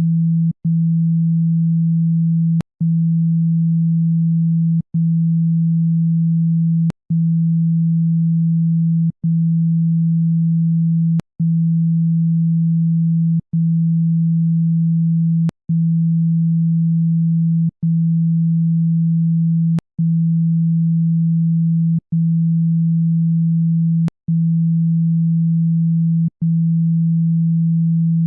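Speaker-cleaning tone: a loud, steady low pure tone, broken by a short gap with a click about every two seconds, meant to shake water and dust out of a phone speaker.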